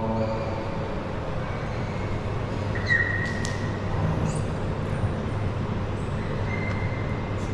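Room ambience of a large indoor prayer hall: a steady low hum, with a brief high squeak about three seconds in and a faint high tone near the end.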